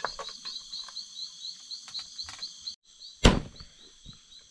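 Night insects chirping in a steady high rhythm, about five chirps a second, over a constant high insect hum, with a few light clicks. The sound cuts out briefly, then a single loud thump comes a little after three seconds in.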